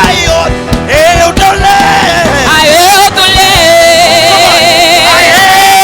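Live gospel worship music: a lead singer holds long, wavering notes over a band with drums, with one note held from about halfway through to the end.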